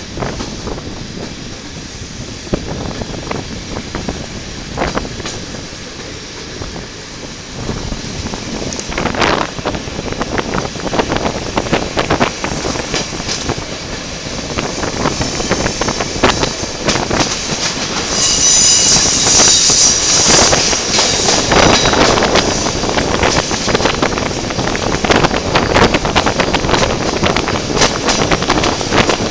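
Passenger coach wheels clicking and clattering over rail joints and switches as the train pulls away, louder and faster as it gathers speed. About two-thirds of the way through, the wheels let out a high squeal for a few seconds.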